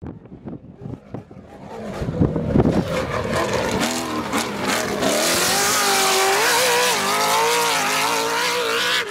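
Off-road race vehicle's engine accelerating hard and then running at high revs, its pitch wavering, with a hiss above it. It starts as a quieter, uneven engine sound with a few sharp clicks, builds from about two seconds in, and cuts off abruptly at the end.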